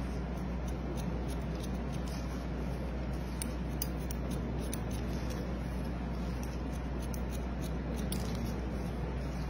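Barber's scissors snipping short wet hair lifted on a comb: irregular crisp snips, about one or two a second, over a steady low hum.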